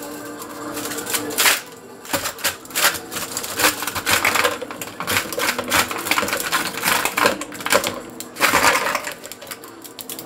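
Plastic ice cube tray being twisted, the frozen cubes cracking loose in a rapid, irregular run of sharp clicks and cracks, with two longer crackling bursts, one under two seconds in and one near the end.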